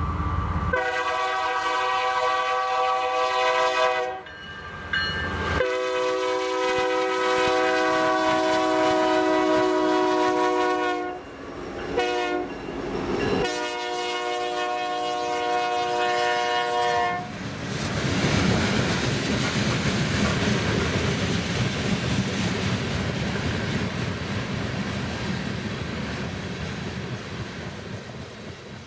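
Diesel freight locomotive's multi-chime air horn sounding long, long, short, long, the standard grade-crossing signal. Then a string of loaded coal hopper cars rolls past with steady wheel-on-rail noise that slowly fades near the end.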